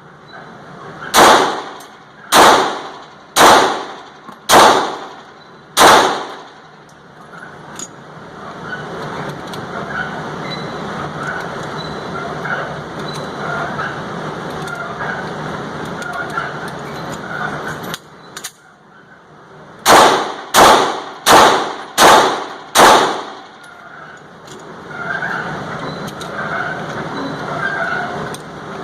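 Sig Sauer P250 pistol firing 9mm Luger rounds: five shots about a second apart, then after a long pause a second string of five faster shots, roughly 0.7 s apart.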